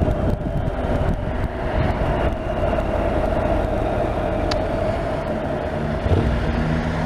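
Honda NC750X motorcycle's parallel-twin engine running steadily on the move, with road and wind noise. A lower steady hum joins about five seconds in.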